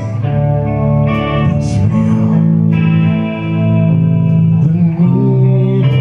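Live band music led by an amplified harmonica cupped against a handheld microphone. It plays long held notes, some bending in pitch, over the band's accompaniment.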